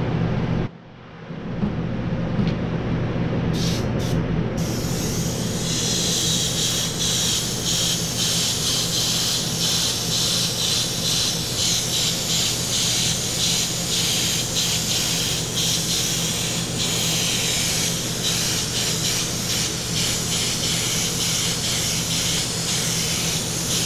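Gravity-feed airbrush with a 0.5 mm fluid nozzle spraying a coat of flake paint: a couple of short puffs of air, then from about four and a half seconds in a continuous hiss that flickers as the trigger is worked. A steady low hum runs underneath.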